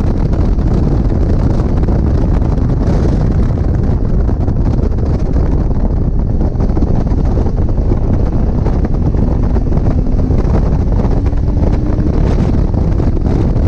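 Locost 7 open-cockpit kit car at racing speed, with wind buffeting the microphone heavily over the engine. The engine note drops as the car slows for a corner, then rises as it accelerates out.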